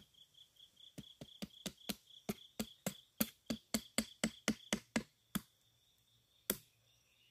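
A knife chopping with a quick run of about twenty sharp strikes, roughly four a second, then one last strike near the end. A steady pulsing insect chirp carries on underneath.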